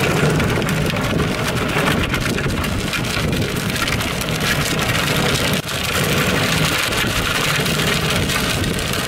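Golf cart driving while it tows a small toy car, its motor humming steadily under a crackling crunch of tyres rolling over gravel and dirt. The sound dips briefly about halfway through.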